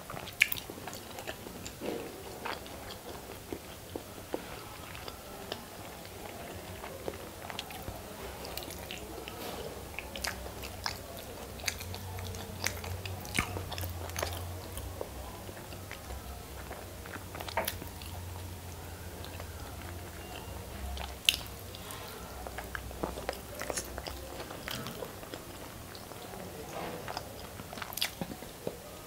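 Close-miked chewing and biting of whole hard-boiled eggs coated in masala gravy, with scattered sharp wet mouth clicks.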